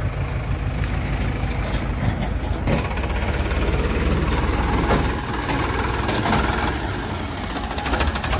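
Heavy diesel engines running steadily, a JCB backhoe loader close by and then a Farmtrac tractor hitched to a tipping trailer. The sound changes abruptly a little under three seconds in.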